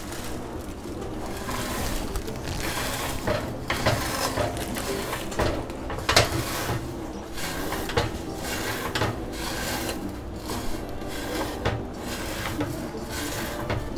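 Dry vermicelli being crushed and snapped by hand in a nonstick pot: an uneven crackle and rustle of breaking strands, with sharper snaps now and then, the loudest about six seconds in.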